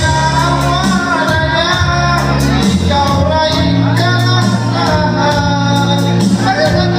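Loud music with singing over a steady percussion beat.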